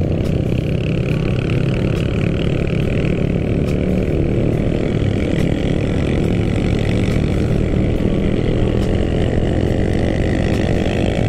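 Motorcycle engine running steadily at cruising speed, heard from the moving bike, with an even, unchanging note throughout.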